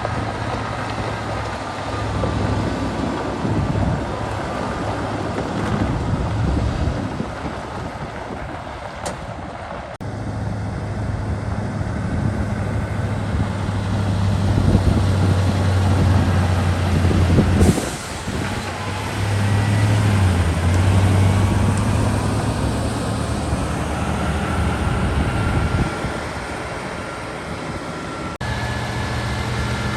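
Heavy diesel engines running steadily at low revs, their pitch and loudness changing abruptly several times, with a short hiss about eighteen seconds in.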